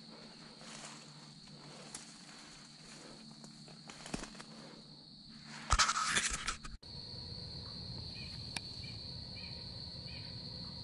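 Footsteps rustling and crunching through dry leaf litter over a steady high insect drone, with a loud burst of rustling about six seconds in. After an abrupt cut the insect drone carries on, with a few faint short chirps.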